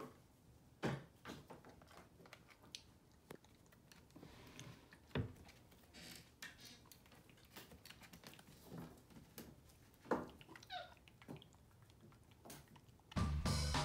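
White-faced capuchin monkey eating oatmeal from a plastic tub on a wooden dresser: scattered knocks and clicks of its hands and feet on the tub and the wood, with a few short high squeaks about ten seconds in. Music starts loudly near the end.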